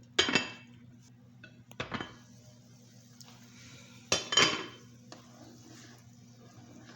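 A metal utensil clinks against a cooking pot three times: just after the start, about two seconds in, and about four seconds in. The first and last clinks are the loudest. A steady low hum runs underneath.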